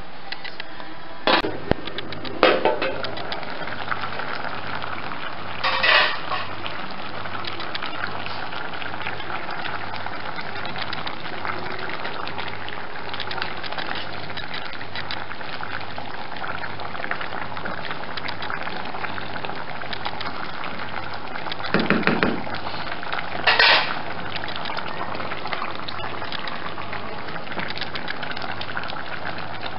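Chicken stewing in broth in a large metal pot on a gas stove, the liquid bubbling and sizzling steadily. A few sharp clinks of cookware stand out near the start, with two louder ones about two thirds of the way through.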